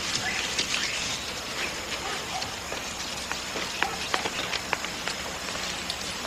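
Outdoor film ambience: a steady hiss with light ticks and clicks scattered through it.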